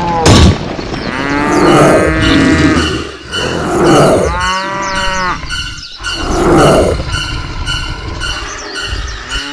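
Cattle mooing: two long moos, with a sharp knock right at the start and short hissy bursts of noise in between.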